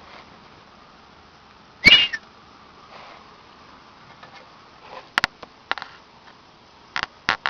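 A cow sneezing once, a short explosive blast through the nostrils with a whistling edge, about two seconds in. Several short sharp clicks follow near the end.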